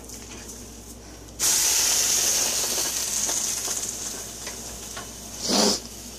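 Cheese sandwich sizzling in a hot frying pan: a loud hiss starts suddenly about a second and a half in and slowly fades, with a short louder burst near the end.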